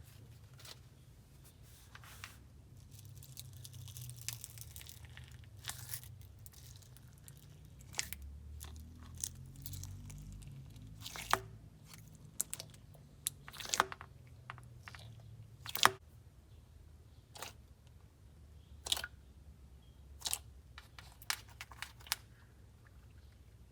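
Fishbowl slime full of fake sprinkles and glitter being mixed: scattered crunchy clicks and crackles, a handful of them sharp and loud, over a faint low hum.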